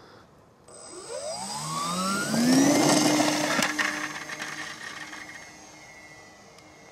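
Twin motors and propellers of a model Catalina flying boat opening up for take-off. A whine rises in pitch for about two seconds, then holds steady and fades as the plane climbs away.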